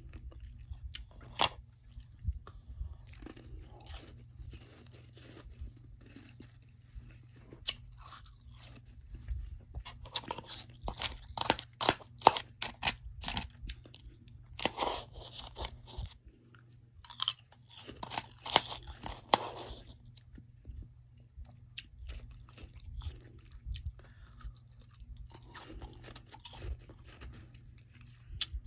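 Close-up chewing and crunching of soft freezer frost: irregular crisp crunches, with louder runs of rapid crunching about a third and two thirds of the way in.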